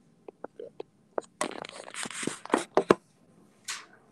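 Stylus tapping and scraping across an iPad's glass screen while handwriting numbers, picked up loudly by the tablet's own microphone. A few light taps come first, then a stretch of scratchy strokes with sharp knocks, and one more short scrape near the end.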